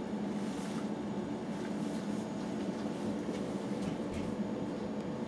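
Steady low hum of equipment or ventilation running, with a few faint rustles.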